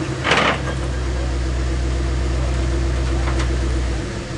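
International Harvester Scout's engine idling with a steady, deep drone. A brief hiss comes about half a second in. The deepest part of the drone drops away near the end.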